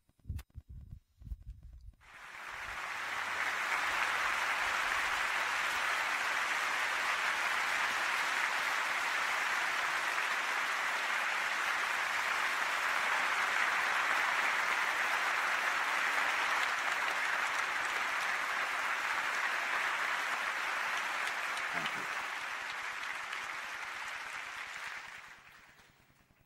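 Large hall audience applauding: dense, steady clapping that swells up about two seconds in and fades away near the end. A few soft low knocks come just before it.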